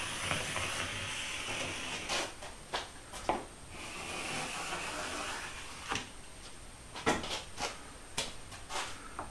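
A pen scratching and hands rubbing over a clamped plywood board as it is marked for cutting, with several light wooden knocks and clicks scattered through the second half.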